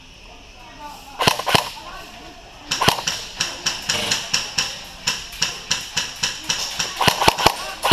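Airsoft guns firing: two single shots just over a second in, then a fast, fairly even string of shots at about five a second from nearly three seconds in.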